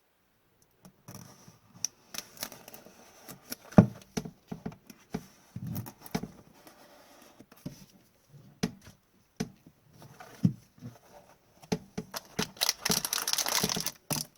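Handling of a trading-card box and packs: scattered clicks, taps and rustles of cardboard and wrapper, then a longer crinkling tear near the end as a pack is ripped open.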